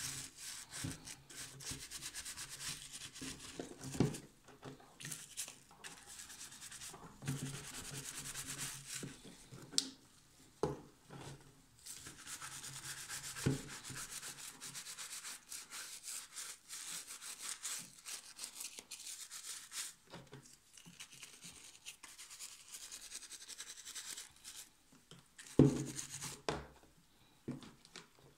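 Stiff plastic-bristled scrub brush scrubbing a wooden model ship in soapy water: a rapid, uneven back-and-forth rasping that comes and goes in stretches. A few sharp knocks and clatters come as the model is handled, the loudest near the end.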